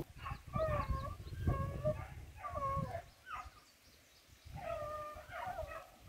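Rabbit beagles baying on a rabbit's track in the brush: a run of drawn-out, howling bays with a short pause in the middle, the sound of hounds giving mouth while chasing.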